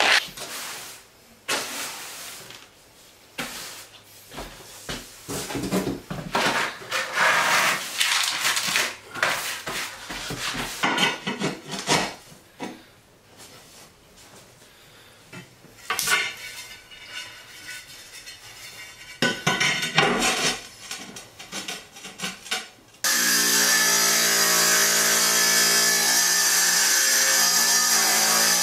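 Irregular scraping and knocking as thinset is troweled and porcelain plank tiles are set into it. About 23 s in, a small wet tile saw starts abruptly and runs with a steady motor hum.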